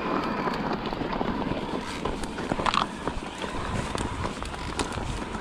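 Mountain bike rolling over a loose, stony trail: tyres crunching on gravel, with frequent clicks and knocks from the bike rattling over the rocks.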